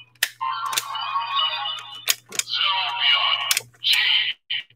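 Toy Ultra Zett Riser transformation device playing its electronic sound effects and music from its small speaker for the Delta Rise Claw medal combination, in phrases broken by short pauses. Sharp clicks of the toy being handled are heard among them.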